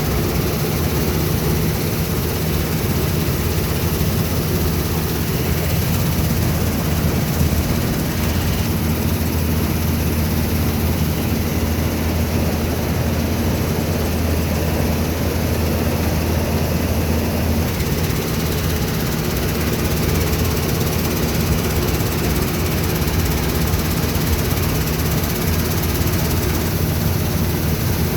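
Diesel engine of farm machinery running steadily at working speed during wheat harvesting, a continuous low drone.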